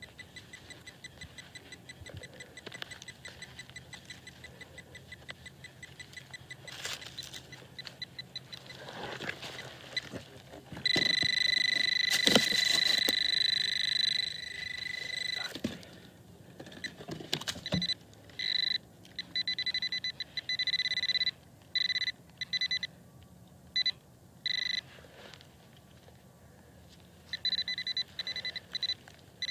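Metal-detecting pinpointer (White's Bullseye TRX) sounding on a buried target: a steady held beep about a third of the way in, then a run of short on-off beeps of the same pitch as it is moved over the metal in the hole. A hand digger scrapes and chops into the soil a few times around it.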